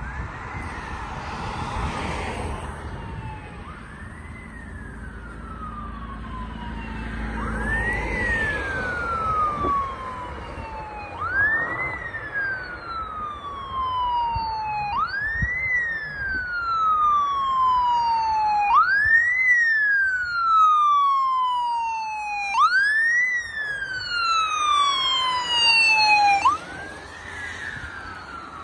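Ambulance siren wailing as the ambulance approaches and passes: each cycle rises quickly and falls slowly, repeating about every four seconds. It grows steadily louder, then drops away sharply near the end.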